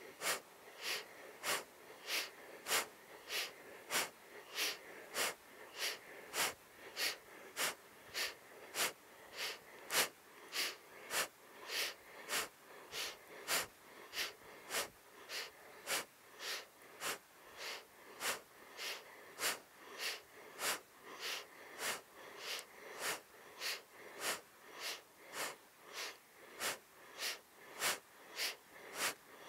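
A woman's rapid, rhythmic breathing, each inhale and exhale a short audible stroke, about three every two seconds and very even. The breaths pace a seated side-to-side twist: inhale turning left, exhale turning right.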